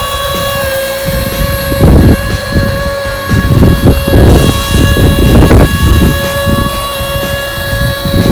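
Small electric motor of a homemade radio-controlled construction model whining at a steady pitch, cutting out briefly and starting again, with irregular low rumbling thumps underneath.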